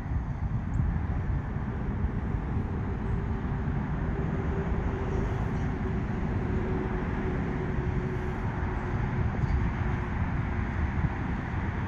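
Steady low rumble of distant vehicle noise, with a faint hum that swells about a quarter of the way in and fades out about three quarters through.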